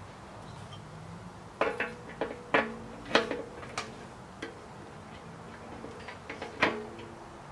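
Heavy-gauge steel wood stove clanking as a steel pipe piece is knocked and fitted into it: about eight sharp metal knocks, most followed by a short ringing hum from the stove's steel body, the loudest about two and a half, three and six and a half seconds in.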